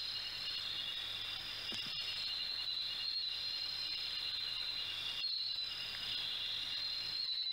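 Insects chirring steadily in a high, continuous chorus, briefly breaking off about five seconds in.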